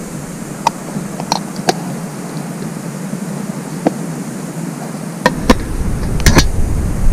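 Sharp clicks and knocks from handling a homemade fishing slingshot and its reel, about eight in all, the loudest in a cluster near the end, over a steady outdoor noise haze. A low rumble sets in about five seconds in.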